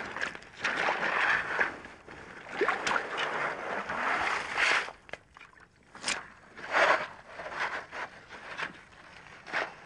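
A digging tool driven into wet gravelly sediment and levered up: an irregular run of gritty crunching and scraping of stones and shingle, with wet sloshing, in short bursts of about a second.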